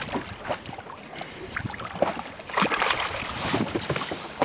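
A hooked European sea bass thrashing at the surface beside an inflatable boat, with a burst of splashing about two and a half seconds in. Scattered small knocks and wind on the microphone run underneath.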